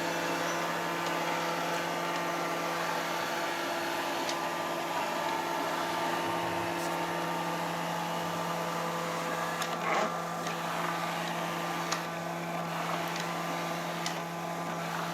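Vacuum cleaner motor running steadily with a constant hum, with a light knock about two-thirds of the way through.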